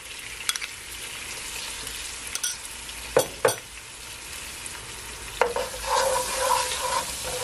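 Sliced onion, sweet peppers and carrot sizzling steadily in hot oil in a frying pan, with two sharp taps a little after the middle. In the last two seconds a wooden spoon stirs the vegetables, scraping across the pan with a faint squeal.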